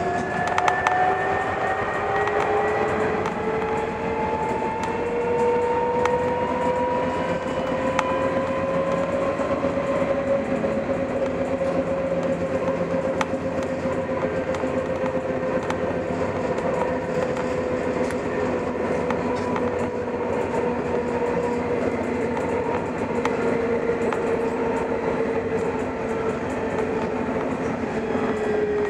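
Luas tram (Alstom Citadis) heard from inside the passenger saloon: the traction motor whine rises in pitch over the first ten seconds or so as it speeds up, then slowly falls, dropping faster near the end as it slows, over a steady rumble of wheels on rail with faint clicks.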